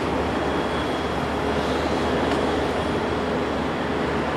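Steady jet engine noise from a four-engine Boeing 747-400 freighter on landing approach, an even rush with a faint high whine over it.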